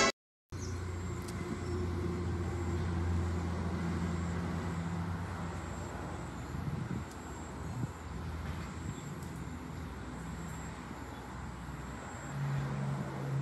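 A steady low engine hum, as of a motor vehicle running nearby, over faint outdoor background noise; the pitch of the hum shifts about twelve seconds in.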